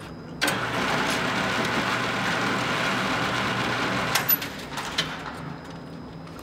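Motorized shooting-range target carrier running, sending the paper target downrange: a steady mechanical whir that starts suddenly about half a second in and dies away after about four seconds, with a few sharp clicks as it stops.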